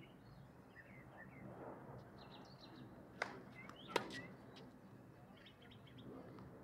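Two sharp tennis ball impacts under a second apart, about three seconds in, the second one louder. Small birds chirp throughout.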